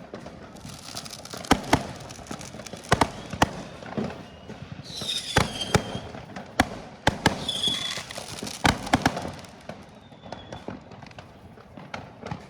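Fireworks going off: a string of sharp, irregular bangs, several in quick succession, with a falling whistle about five seconds in and a shorter whistle a little later.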